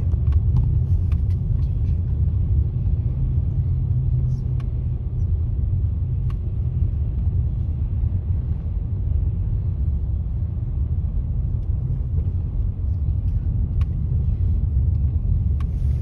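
Steady low rumble of road and engine noise inside a moving car's cabin as it drives along a snow-covered road, with a few faint ticks.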